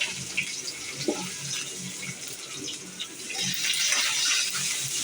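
Onions and cumin seeds sizzling in hot oil in a pan, a steady hiss with small crackles through it.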